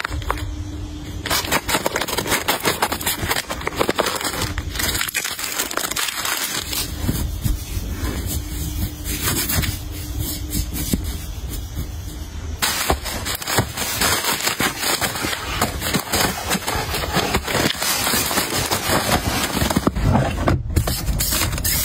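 Close-up rustling and crinkling of packaging and fabric being handled, dense and crackly, changing character at a few abrupt cuts.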